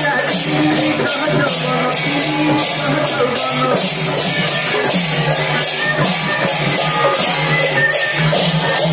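Devotional kirtan played live: large brass hand cymbals clash in a steady fast beat, about three to four strikes a second, over a barrel drum, with voices singing along.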